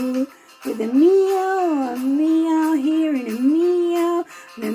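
A woman's singing voice draws out one long note that slides up, holds, falls away and rises again, with a short sung note near the end. It is a sung imitation of a cat's miaow.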